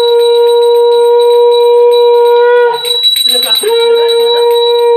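Conch shell (shankha) blown in two long steady blasts. The first breaks off a little before three seconds in, and the second begins about a second later, starting slightly low and settling onto its note. A small hand bell rings continuously under it.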